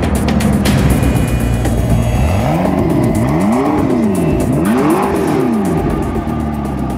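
BMW M4 F84's twin-turbo straight-six revved twice, each time rising in pitch and falling back, starting a couple of seconds in, over background music with a steady beat.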